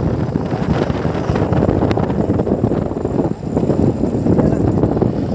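Wind buffeting the microphone over the low rumble of a moving vehicle. The noise is steady and loud, with a brief dip a little past the middle.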